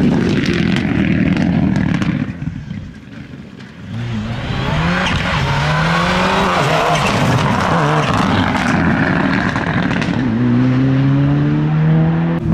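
Rally car engine from a Mitsubishi Lancer Evolution, running loud, with a brief drop in level about two seconds in. From about four seconds the revs rise and fall as the car drives past, and near the end the pitch climbs as it accelerates.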